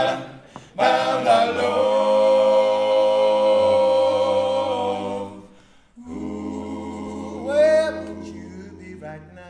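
Four male voices singing a cappella in close harmony: a long held chord over a steady bass note, a short break about six seconds in, then a final chord in which one voice slides up in pitch before the sound fades away.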